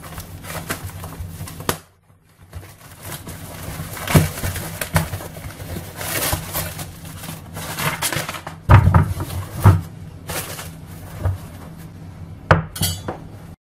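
Handling noise of a paper towel roll being unwrapped: plastic wrapping rustling and crinkling, with a few knocks as the roll and its wooden holder bump the counter, the loudest about nine seconds in.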